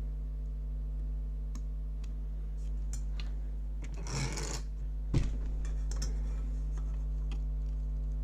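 Light clicks and taps of small tools or test probes handled at a workbench, with a brief scrape about four seconds in and a sharper click just after five seconds. A steady low electrical hum runs under it.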